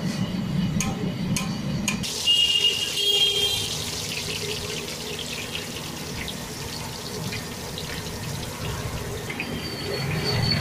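Potato slices deep-frying in a large wok of hot oil, a steady sizzle full of fine crackles. A low rumble from the gas burner under the wok is heard for the first two seconds and then cuts off.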